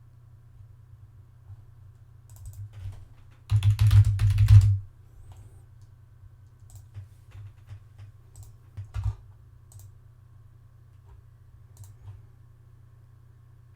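Computer keyboard typing: a quick run of keystrokes about three and a half seconds in, with scattered single clicks before and after, over a low steady hum.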